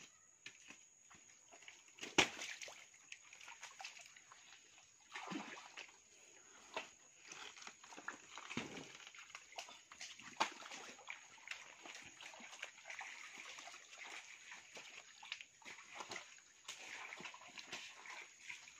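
Splashing and squelching in shallow muddy water, with irregular rustling and snapping of leaves and plant stems.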